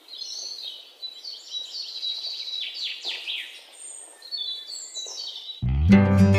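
European robin singing, a run of high, varied warbling phrases. Near the end, acoustic guitar music starts abruptly.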